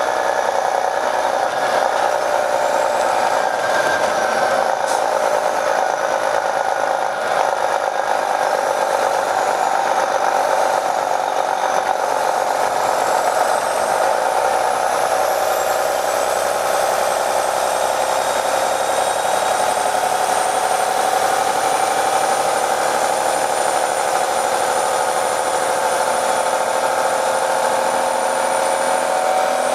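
Detroit Diesel Series 60 diesel engine of an MCI D4500 coach bus running steadily under way, heard from inside the bus. A high whine rises around the middle, holds steady, then drops away at the very end.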